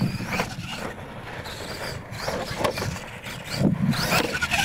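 Radio-controlled monster truck driving on dirt: its motor whine rises and falls with the throttle over the scrabble of tyres on the loose track, getting louder in the last second or so.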